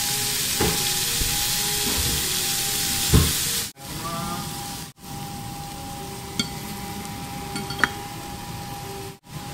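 Steak sizzling on a hot cast-iron serving plate, a loud steady hiss for the first few seconds and quieter after that. A few sharp clicks of the knife and fork against the plate.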